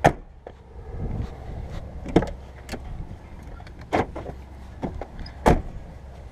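Steady low rumble with four sharp knocks spaced about a second and a half apart.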